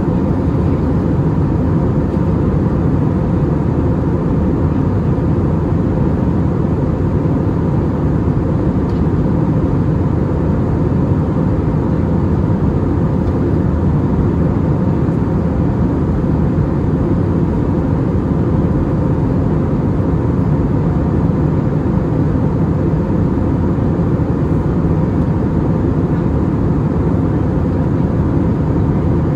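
Airbus A320neo cabin noise in flight: a steady, even rush of engine and airflow noise heard from inside the passenger cabin, with a faint steady tone running through it.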